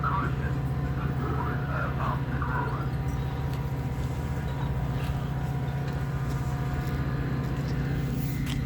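An engine running steadily: a low, even drone with a faint steady higher tone above it.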